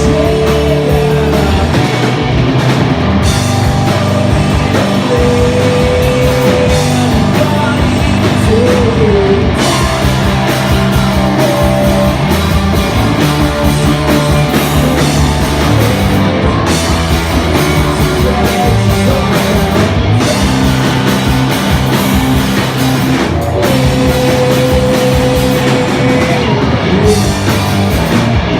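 Rock band playing live and loud: drums and electric guitars in a continuous, dense wall of sound.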